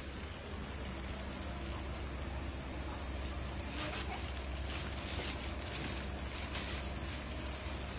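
Steady low room hum with faint, scattered crackling, thickest from about four seconds in.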